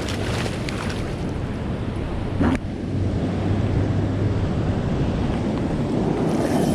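Wind buffeting the microphone as a steady low rumble, with a single sharp knock about two and a half seconds in.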